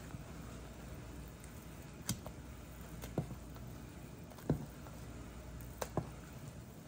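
A handful of light, sharp taps and clicks, two close together about two seconds in and a quick cluster near the end, over a low steady hum.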